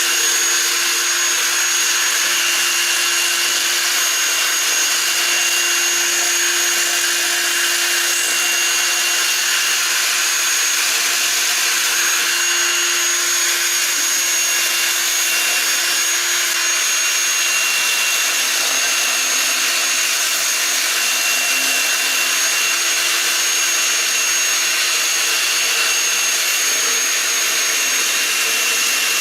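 Shopsmith lathe running steadily at slow speed, its motor giving a constant whine. Over it is the hiss of an abrasive Sandaflex block sanding the inside of a spinning maple burl bowl.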